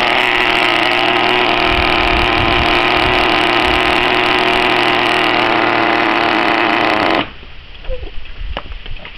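Exceed RC Infinity nitro truck's small two-stroke glow engine running steadily while warming up, then stopping suddenly about seven seconds in. Faint clicks of the plastic body shell being handled follow.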